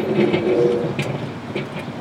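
Steel wool sparking inside a running microwave oven: irregular crackling and snapping of arcs over the oven's steady hum, with one sharp snap about a second in.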